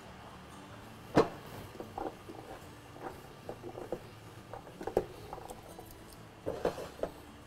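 Scattered knocks and clatters of dishes and containers being handled on a kitchen counter, the sharpest about a second in and a short cluster near the end.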